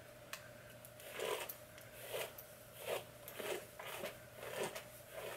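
A hairbrush drawn through the long hair of a lace front wig in repeated quick strokes, about one stroke every two-thirds of a second, each a short soft rasp.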